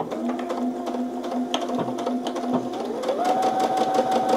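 Brother Innov-is VQ4 computerized sewing machine stitching fabric under the foot pedal: a steady motor hum with a fast, even ticking of needle strokes. It speeds up with a rising pitch about three seconds in, then holds the faster speed.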